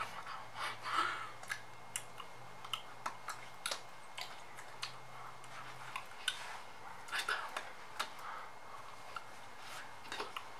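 Scattered soft clicks and taps with light rustling at an irregular pace, from a person's hands meeting and brushing against a jacket while signing.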